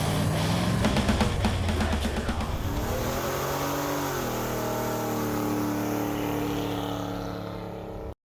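Car engine revving, its pitch rising and falling and then held steady while it fades, cut off abruptly near the end.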